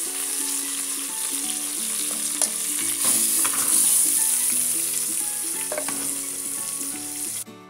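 Beef shank pieces searing in hot oil in a frying pan, sizzling steadily, with a few sharp clicks of a metal fork against the pans as the meat is moved. The sizzle cuts off suddenly just before the end.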